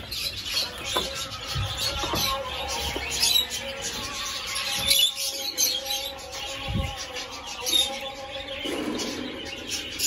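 Lovebirds chirping in an aviary: many short, high chirps from several birds, going on continuously.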